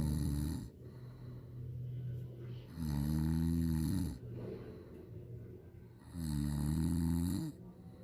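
A person snoring loudly in slow, regular breaths: a long, pitched snore about every three seconds, three in all, the first already under way at the start, with quieter breathing between them.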